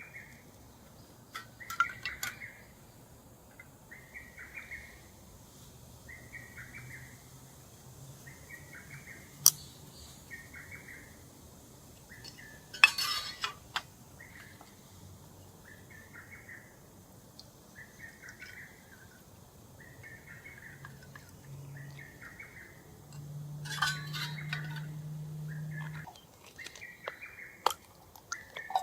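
A bird repeats a short call about every one and a half seconds, with a few sharp clinks of metal cookware and a low hum that grows louder near the end.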